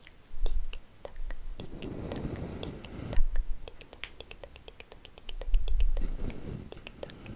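ASMR whispering right at a condenser microphone, with many quick, sharp mouth clicks and three breathy swells that puff low on the microphone.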